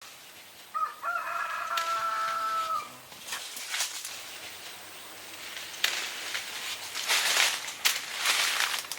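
A rooster crows once, starting about a second in and lasting about two seconds, its pitch dropping at the end. After it come rustling and scuffing noises with a few sharp clicks.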